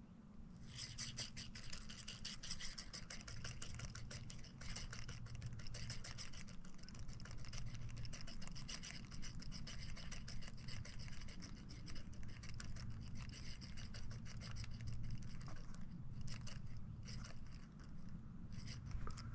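Small 1000-size spinning reel being wound, a fine rapid ticking and whirring with brief pauses, over a steady low hum.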